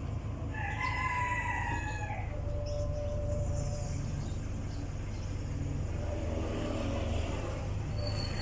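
A rooster crows once, a long call beginning about half a second in, over the steady low rumble of road traffic; a car passes near the end.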